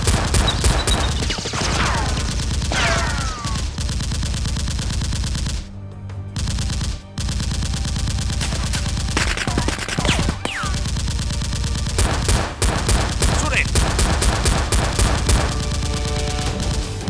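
Long bursts of rapid automatic gunfire, the dubbed sound effect for the blasters in the fight, with a few falling whistles among the shots and a short break near the middle.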